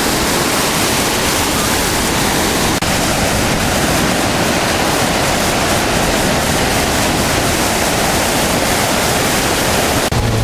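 Loud, steady rush of floodwater.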